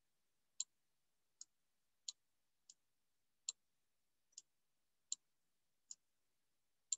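Computer mouse clicking: about nine short, sharp clicks spaced irregularly, a little under a second apart, against near silence.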